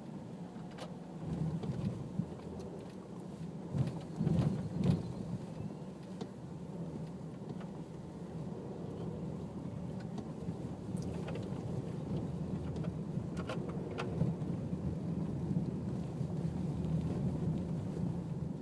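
Low, steady rumble of road traffic, with a few louder thumps about four to five seconds in.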